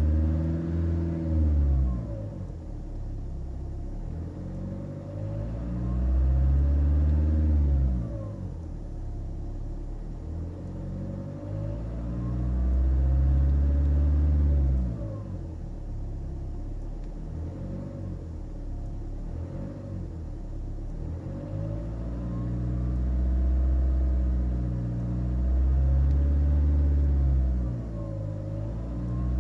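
Nissan X-Trail 2.0 diesel engine revved up and back down several times, with the turbocharger whistling, rising and falling in pitch with the revs. The owner suspects unbalanced or damaged turbine blades.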